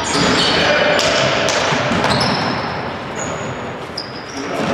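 Basketball game play on an indoor court: the ball bouncing off the floor amid players' movement, with several short high squeaks, echoing in a large hall.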